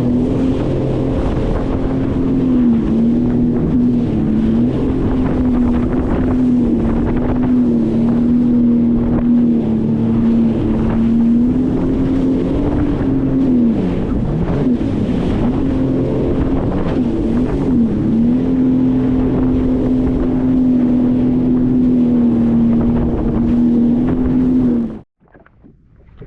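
Sea-Doo FishPro personal watercraft's engine running at a steady cruise, a loud even drone. Its pitch dips and wavers for a few seconds midway as the throttle eases and comes back, then holds steady again before the sound cuts off abruptly near the end.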